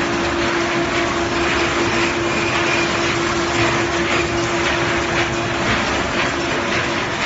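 Fried snack processing line running: a steady mechanical noise of conveyors and motors, with a constant hum.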